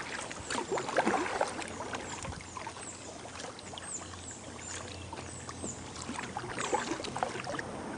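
Kayak paddling: the paddle blades dip and splash, and water drips and trickles off them at an irregular pace. A run of short, high, falling chirps sounds in the middle.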